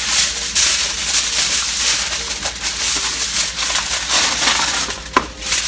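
Aluminium foil rustling and crinkling as it is pulled off the roll and handled, a continuous crackly noise with a sharp click about five seconds in.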